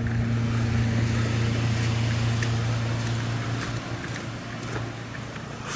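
Steady low mechanical hum, like an engine running nearby, that fades after about three seconds, with a few faint clicks over a light outdoor hiss.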